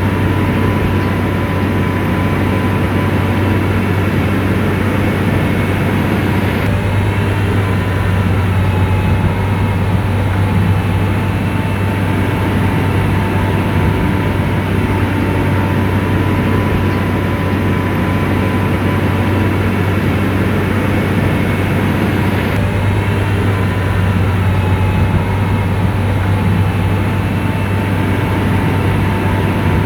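Komatsu bulldozer's diesel engine running steadily, a deep drone with a thin whine over it.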